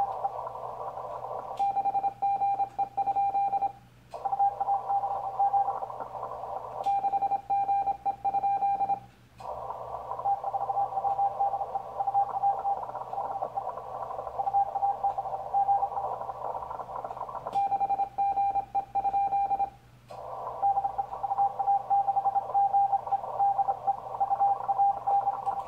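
Morse code on the 40-metre band through a Yaesu FT-1000MP Mark-V Field transceiver: a steady Morse tone over narrow filtered band hiss. Three times, for about two seconds each, rapid computer-keyed Morse code sounds as the station calls CQ. Each call is followed by a brief drop to silence before the receiver hiss returns.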